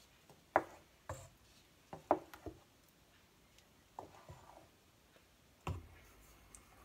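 Wooden spoon stirring thick fruit purée in a stainless steel pot, giving about eight soft knocks and clicks against the pot at uneven intervals, with the heaviest knock near the end.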